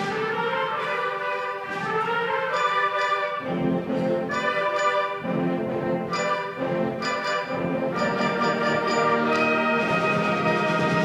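A school concert band of woodwinds and brass playing sustained chords that change every second or so, with the low instruments growing strong a few seconds in.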